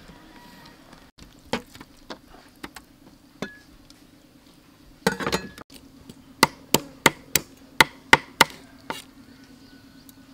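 Kitchen knife cutting fish on a thick round wooden chopping board: scattered knocks of the blade on the wood, a short flurry about five seconds in, then a run of about eight sharp chops, roughly three a second.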